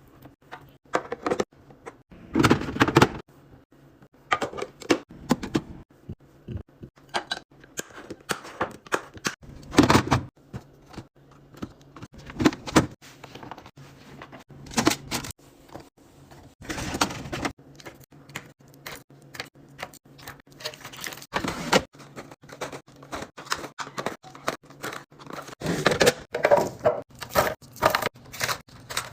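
Food containers, bottles and packages being handled and set into a fridge: irregular clicks, knocks and short clatters of plastic and glass, one after another.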